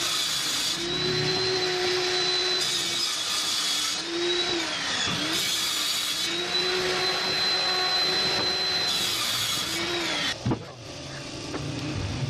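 Handheld electric power tool running at high speed, its motor whine dipping in pitch and recovering several times as it bites into material. It stops about ten seconds in, with a knock.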